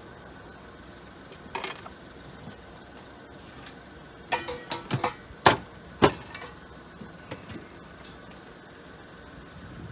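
Metal ladle and saucepan clinking and knocking against pots and ceramic bowls as ramen broth is dished out. There is one clink a second or so in, a quick cluster about four seconds in, and the two loudest knocks around five and a half and six seconds, all over a steady low hum.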